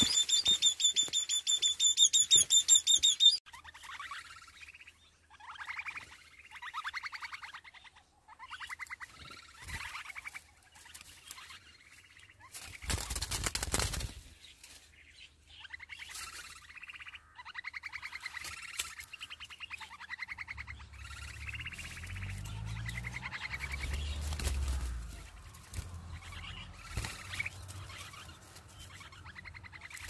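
Baby birds chirping in rapid, repeated trains of calls, loudest and highest-pitched in the first three seconds, then softer bursts. A short rush of noise comes about thirteen seconds in.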